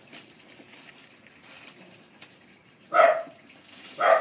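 Scissors snipping at plastic packaging, with faint crinkling and small clicks, then two short loud sounds about a second apart near the end.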